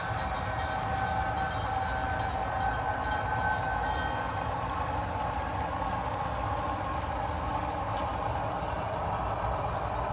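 HO scale model train running on the layout: a steady whine over a low rumble, with the whine strongest in the first half.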